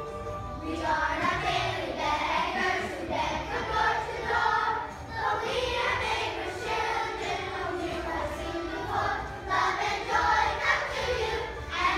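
A group of children singing together, phrase by phrase.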